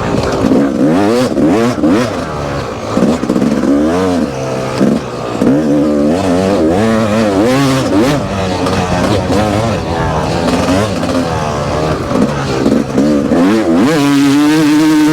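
Yamaha YZF four-stroke dirt bike engine revving up and dropping back again and again as the rider works the throttle and gears, then holding a steady high rev near the end.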